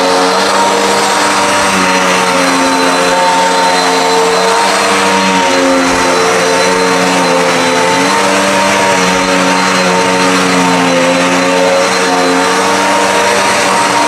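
Dirt Devil Endura Max upright vacuum cleaner running on carpet: a loud, steady motor whine over rushing air, its pitch wavering slightly as the head is pushed over the pile.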